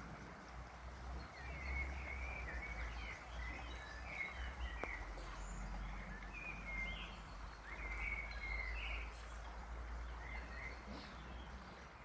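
Small birds chirping in many short, quick calls over a steady background rush of noise.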